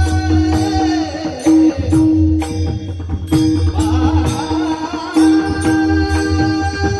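Devotional singing: a voice holding and bending long notes over a steady drone, accompanied by pakhawaj drum strokes and regular metallic hand-cymbal beats.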